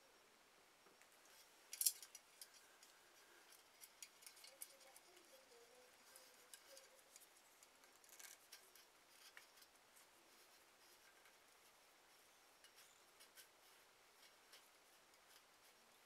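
Faint, scattered clicks and rustles of hands twisting plastic twist-on wire caps onto spliced electrical wires, the sharpest click about two seconds in.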